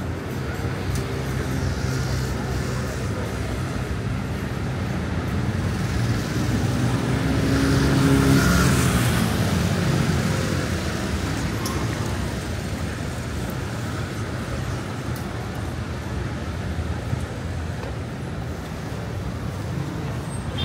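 City street traffic, with motor vehicle engines running steadily. One vehicle passes close, swelling to its loudest about eight seconds in before fading back into the traffic.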